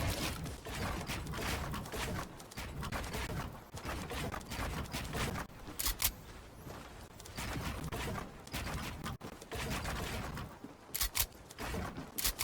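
Handling noise from assembling a PC: irregular rustling and light knocks, with sharp clicks now and then and a quick run of clicks near the end.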